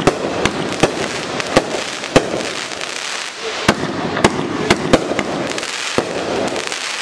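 A 500 g, 24-shot consumer fireworks cake firing: sharp shot reports and bursts about every half second over a continuous hiss, with a short lull a little before the middle.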